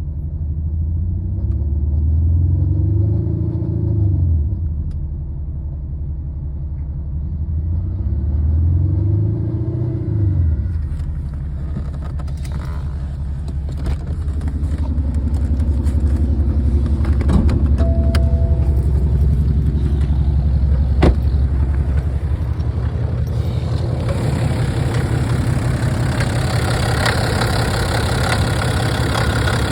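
BMW 330d F30's straight-six diesel running from cold, its speed rising and falling twice in the first ten seconds, then settling to a steady idle with a few sharp clicks. The owner takes the noise for a problem heard when the engine is cold.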